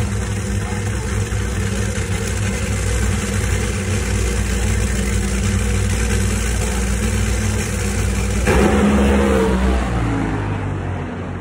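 A drag racing car's engine running at a steady, loud idle, then suddenly louder and harsher with a higher tone about eight and a half seconds in as the throttle is opened, easing off a little near the end.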